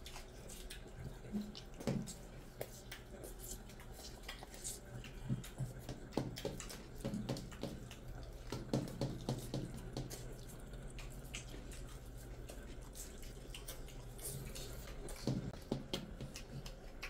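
Quiet, irregular wet squishing and small clicks of bare hands kneading rice and curry on metal plates, with chewing, over a faint steady low hum.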